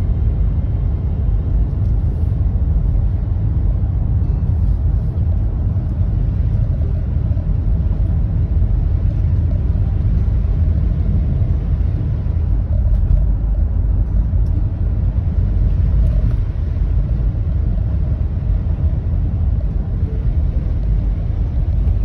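Steady low rumble of a car in motion, engine and tyre noise on a wet road heard from inside the cabin.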